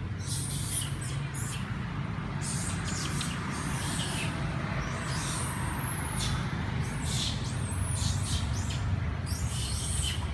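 Short, high-pitched animal squeaks and chirps, several falling in pitch, repeated at irregular intervals over a steady low rumble.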